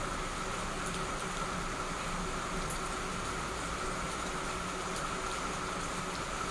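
Heavy rain falling steadily: an even hiss with a few faint ticks of drops.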